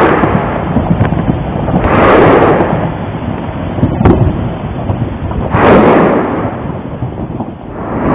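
Taal volcano's phreatomagmatic eruption: loud rumbling blasts that surge every two to four seconds over a steady low rumble, with a sharp crack about four seconds in.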